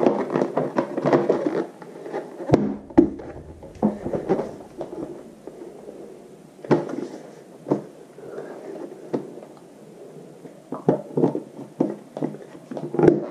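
Plastic side cover of a Husaberg TE300 dirt bike being handled and pressed into its clips: rustling and rubbing of plastic with scattered sharp knocks and clicks, several close together near the end as it snaps home.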